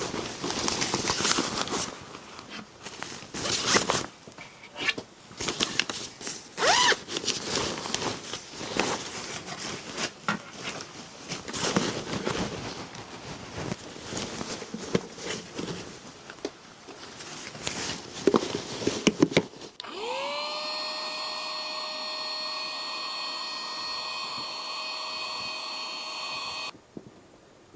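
Irregular scraping and rustling, then a small electric motor spins up with a short rising whine and runs steadily for about seven seconds before cutting off suddenly.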